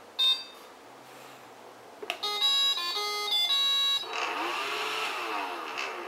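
iRobot Roomba Red (model 4100) beeping once at the button press, then playing its short electronic start-up tune of several notes. Its vacuum fan then spins up for about two seconds and dies away as the robot halts instead of driving off, a fault the owner puts down to a bad battery or damaged charging circuit.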